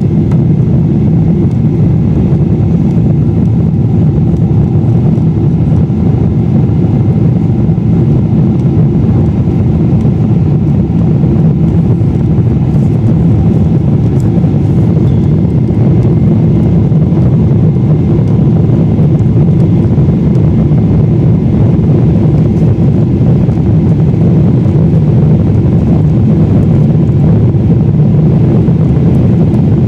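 Steady cabin noise inside a Boeing 747-8 on approach with flaps extended: an even, deep rush of airflow and engine noise that holds constant throughout.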